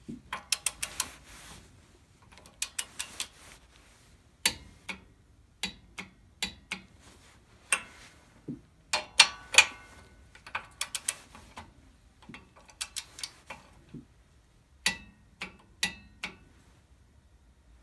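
Ratchet wrench clicking in short runs of rapid clicks with pauses between, as it is swung back and forth to tighten a small engine's cylinder head bolts after a head gasket replacement.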